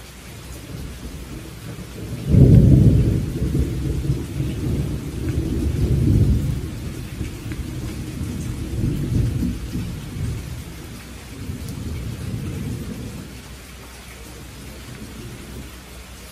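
Steady night rain with a peal of thunder that breaks sharply about two seconds in and rolls on in several low swells, dying away after about ten seconds.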